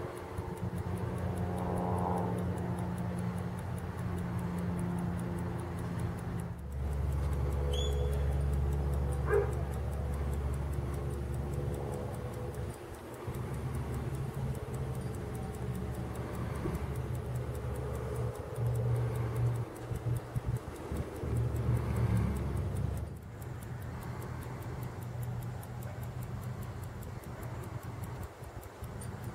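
Illinois 19-jewel railroad pocket watch ticking fast and evenly, faint under a louder steady low hum whose pitch shifts a few times.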